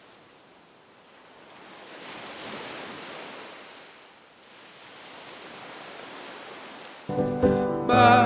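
Soft rushing noise that swells and fades slowly, like surf. About seven seconds in, loud music cuts in suddenly.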